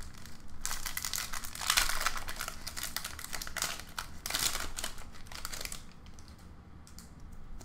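Foil wrapper of a Pokémon Sun & Moon booster pack crinkling as it is handled and torn open by hand: a dense, irregular crackle lasting about five seconds that dies down near the end.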